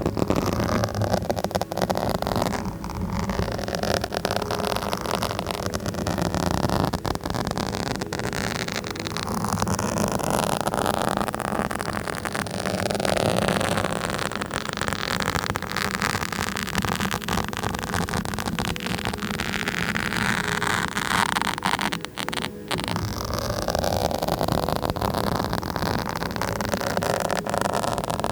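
Continuous close-up scratching on a microphone: a dense, rapid scratching noise that pauses for a moment about 22 seconds in.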